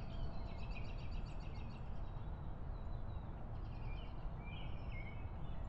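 Birds chirping over a steady low outdoor background rumble: a quick run of repeated chirps in the first couple of seconds, then more calls a few seconds later.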